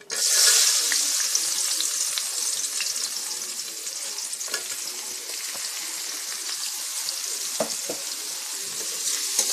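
Sliced onions dropped into hot oil in a kadai (wok): a sudden sizzle as they hit the oil, then steady frying as a metal spatula stirs them, with a few short taps and scrapes of the spatula against the pan.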